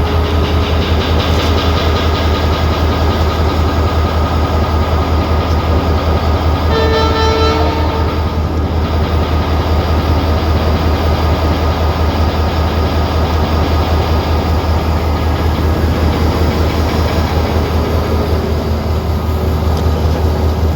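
Abu Qir commuter train running with a steady low rumble; its horn sounds once, briefly, about seven seconds in.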